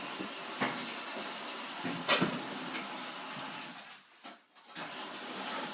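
Washing machine filling with warm water: a steady rush of incoming water. Two knocks come about half a second and two seconds in, and the sound drops out briefly around four seconds in before it resumes.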